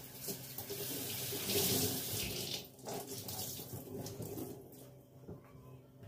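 Kitchen tap running into a sink. The flow is strongest for the first two and a half seconds, then quieter and uneven, as if water is splashing over things in the sink.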